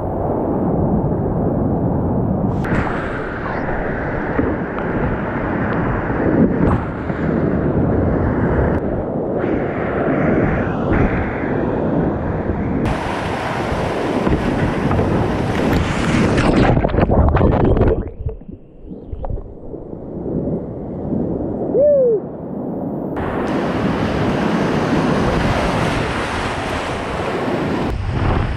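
Whitewater rapids rushing and splashing close around a kayak, picked up on a body-mounted camera's microphone. The sound changes abruptly several times and dips quieter for a couple of seconds about two-thirds through.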